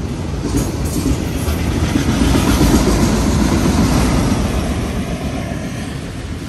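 A train's cars rolling past on the rails: a loud, steady rumble of wheels on track that fades over the last couple of seconds as the train moves away.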